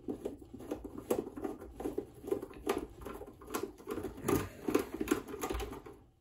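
A screwdriver backing a small screw out of a sewing machine's plastic housing: a run of irregular small clicks and scratchy ticks.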